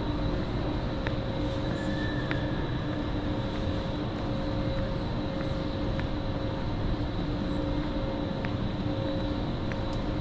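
Steady rumble and hum of a train, with steady tones over the noise and a few faint clicks.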